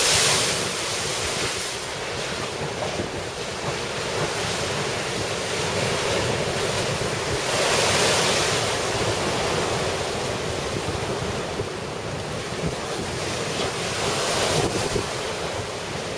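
Heavy storm surf breaking and pounding against a seawall, a continuous wash of water that surges louder near the start, about halfway through and near the end. Wind buffets the microphone.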